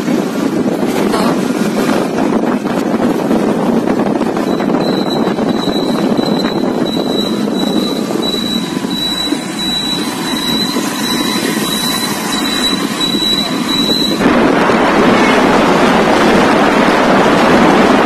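Wind buffeting the microphone over the running and tyre noise of a two-wheeler riding on wet road. A steady high-pitched whine sounds through the middle stretch and cuts off. After that the rushing noise gets louder, as with more speed.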